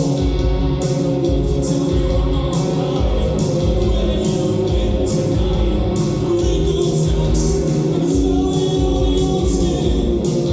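Live band playing a song with sung vocals over a steady kick-drum beat and cymbals.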